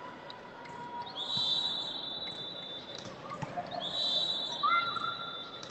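Two long, high whistle blasts in quick succession, each held about two seconds, over the hall's background noise.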